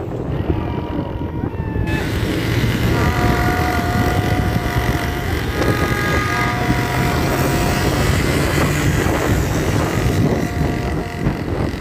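Street traffic from a moving vehicle, with wind buffeting the microphone. Several horns blow long steady notes together at different pitches for a few seconds from about three seconds in, with shorter horn notes near the start.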